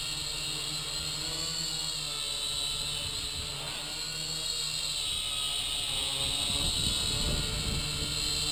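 Syma X5C toy quadcopter in flight: its four small motors and propellers make a steady whine whose pitch wavers as it holds and shifts position. It grows louder over the last couple of seconds, with a low rush of air added as it comes closer.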